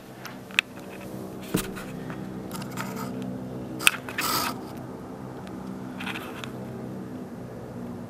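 A steady hum of several low, level tones held together, which the recorder takes for a mysterious hum from the sky. A few handling clicks and rustles sound over it, the loudest about four seconds in.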